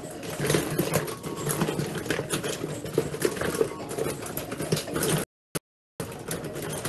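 Rummaging through makeup: plastic eyeshadow cases and compacts clicking and knocking together in quick, irregular taps. The sound cuts out completely for under a second near the end.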